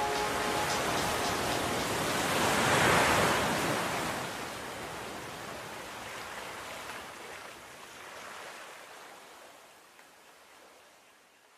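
A rushing, rain-like hiss swells to its loudest about three seconds in, then fades slowly away.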